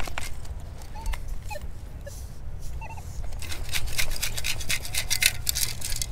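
A perforated metal sand scoop digging into beach sand, then being shaken so the sand sifts out through its holes, giving a dense crackling rattle from about three and a half seconds in. A few short faint chirps come earlier.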